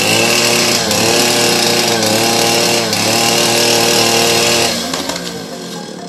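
Chainsaw running hard as it cuts into the trunk of a fallen tree, its pitch sagging several times as the chain bites into the wood. It eases off about five seconds in.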